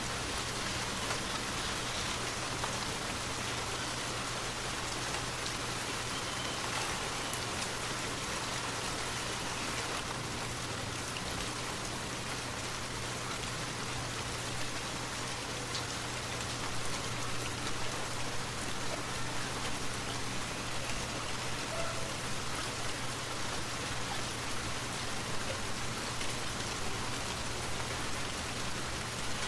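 Forest waterfall: a steady, even rush of falling and splashing water.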